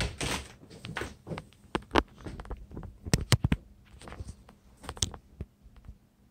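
A closet door being opened by its knob, with a rustle and latch click at the start, then a series of sharp clicks and knocks, several in quick succession about three seconds in.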